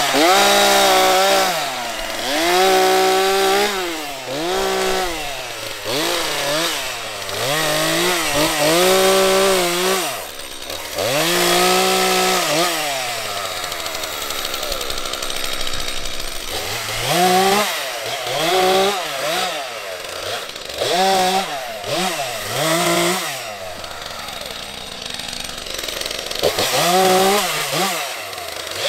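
Stihl MS 231 two-stroke chainsaw limbing a felled pine, revving up for each cut and falling back toward idle between them, over and over. There are a couple of stretches of steadier, lower running between bursts of cuts.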